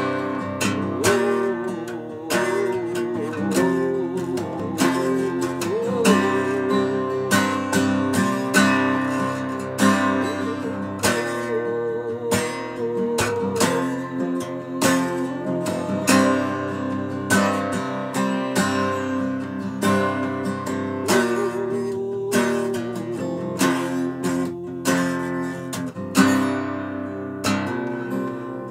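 Acoustic guitar strummed in a steady rhythm, chords struck about twice a second.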